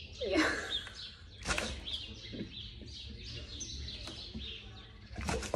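Dog sniffing and snuffling with its nose in the holes of a cardboard box, with two sharp sniffs, one about a second and a half in and one near the end. Faint bird chirps in the background.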